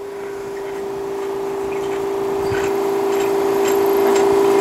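Roughing pump pumping down a sputter system's bell jar just after the roughing valve is opened: a steady hum with one strong tone, growing louder.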